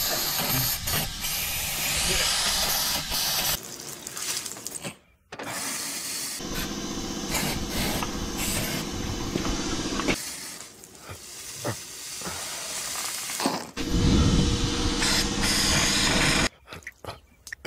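Aerosol can of ether starting fluid spraying into the gap between a truck tire's bead and its rim, a hiss in three long bursts with short pauses between, as the tire is filled with ether before it is lit to blow the bead onto the rim.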